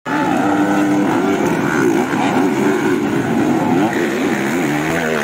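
Several motocross bikes racing on a dirt track, their engines revving up and down in overlapping rising and falling pitches.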